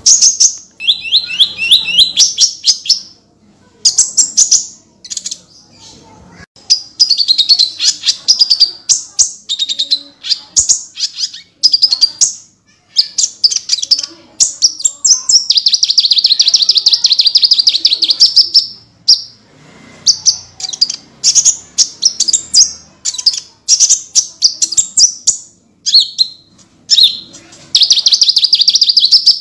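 A konin songbird singing nonstop in loud, rapid, high-pitched trills and chattering bursts, with short pauses between phrases and one long unbroken trill about halfway through.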